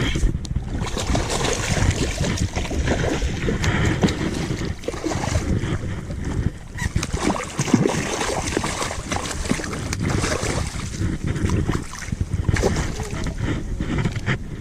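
Strong wind buffeting the microphone, with choppy shallow bay water splashing and lapping.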